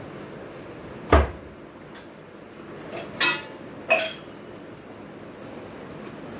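A kitchen cabinet door shuts with a thud about a second in. About two seconds later, steel pots and utensils clank twice, the second clank ringing briefly.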